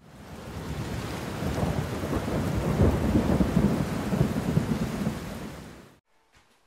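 Thunderstorm sound effect: a steady rain hiss with rolling thunder rumbles, fading in and cutting off suddenly about six seconds in.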